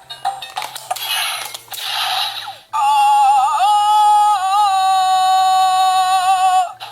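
Electronic sound effect from a Zyuohger (Power Rangers Animal Force) transformation toy. It opens with a few clicks and swishing noises, then about three seconds in comes a loud held synthetic sung note that wavers in pitch and cuts off suddenly near the end. Quiet background music with a stepping bass line plays underneath.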